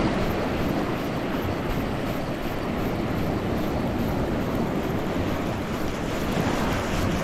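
Steady rush of wind on the microphone mixed with surf breaking on the beach.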